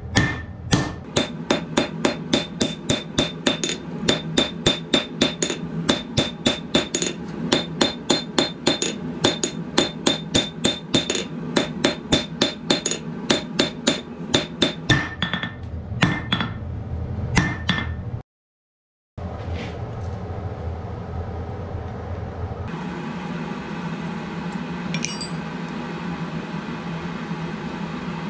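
Hand hammer striking a red-hot steel reinforcement bar on an anvil: rapid ringing blows, about three a second, that thin out and stop about fifteen to eighteen seconds in. After a short break a steady hum takes over, with a few faint clinks.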